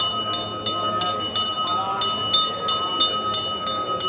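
Temple bell ringing in a steady rhythm, about three strokes a second, its tone ringing on continuously between strokes during a puja.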